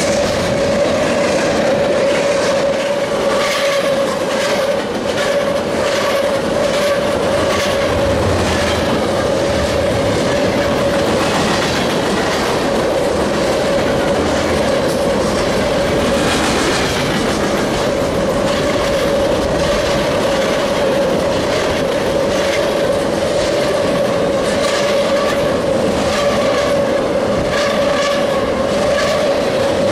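Freight train passing close by: loaded cars rolling past with a rhythmic clickety-clack of wheels over rail joints, and a steady whine underneath.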